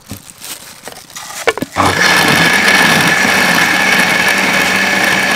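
Electric countertop blender, jar lid knocked into place a couple of times, then the motor switched on about two seconds in and running steadily at full speed, churning a milky liquid in the glass jar.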